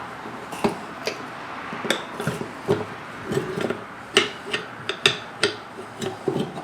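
A small snow blower tire being worked off its rim by hand, its beads already broken, with irregular knocks and clicks from the rubber and wheel being handled. The sharpest knocks fall in a cluster a little past the middle.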